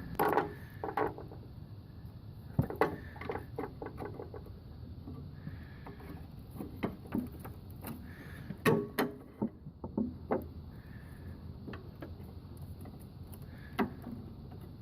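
Scattered knocks, clicks and clanks of mower parts and hand tools being handled while reassembling a riding lawnmower's deck and belt covers. The loudest knocks come about three seconds in, around nine seconds and near the end.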